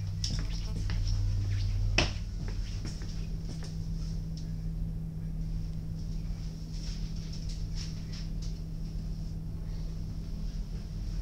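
Steady low hum of a diesel GTW railcar's idling engine, heard from inside the passenger compartment, with scattered light clicks and footsteps. One sharp click about two seconds in is the loudest sound.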